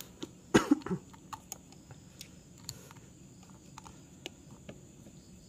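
A person's short cough-like throat sound about half a second in, then faint scattered clicks and ticks over low room hiss.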